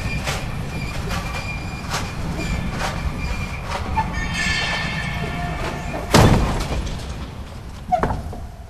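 Extremely heavy electrically driven metal hangar doors moving along their floor rails: a steady low rumble with repeated clanks and a brief metallic squeal midway, then a loud bang about six seconds in and another knock near the end as the rumble fades.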